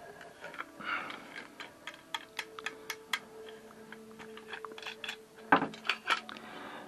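Light clicks and taps of a table saw's aluminium rip fence and its wing-knob bolts being handled: a quick run of small ticks in the first few seconds, then a few louder knocks about five and a half seconds in.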